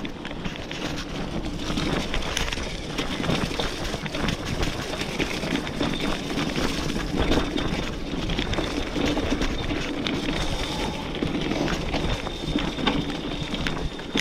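B'Twin 520 mountain bike ridden over a grassy dirt singletrack: a steady rumble of tyres rolling on the track and wind on the microphone, with many small clicks and rattles as the bike jolts over bumps.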